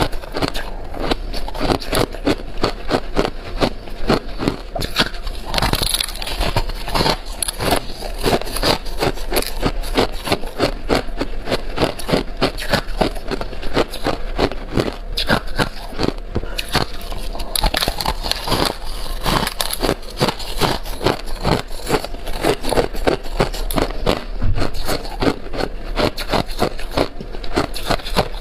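Hard ice being bitten and chewed close to the microphone: continuous crunching, several sharp cracks a second.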